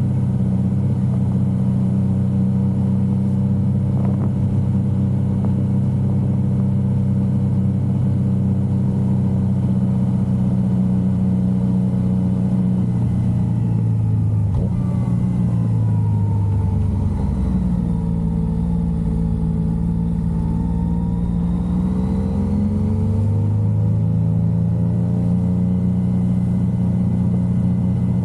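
Yamaha XSR900's inline three-cylinder engine running under way. It holds a steady note, drops in pitch about halfway as the throttle is rolled off, then rises again a few seconds later as it pulls away.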